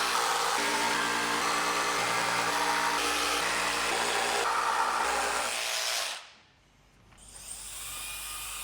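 A woodworking power tool running steadily for about six seconds, then cutting off. After a brief pause, a quieter motor sound builds up near the end with a rising whine.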